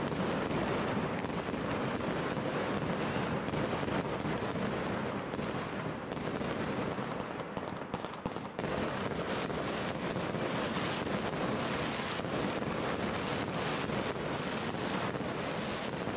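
Steady crackling noise with many small pops and clicks.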